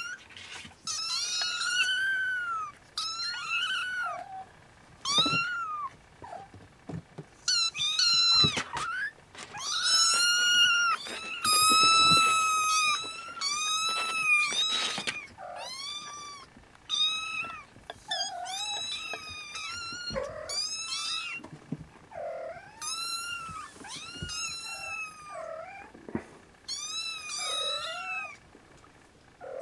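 Siamese kittens meowing over and over in high, thin calls, often several at once, with a few lower, shorter meows mixed in.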